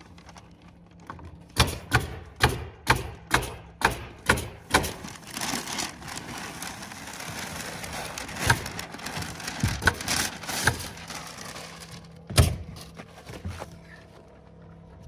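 Pneumatic nail gun firing into OSB roof sheathing: a quick run of about eight shots, two or three a second, then a few single shots further apart. Between the shots comes the crackle and rustle of heavy paper backing being peeled off a roll of ice-and-water-shield membrane.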